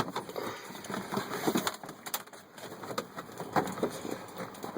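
Scattered knocks, clicks and rustling of the plastic heater-core housing, hose lines and cables being worked into place under a Ford F250's dashboard.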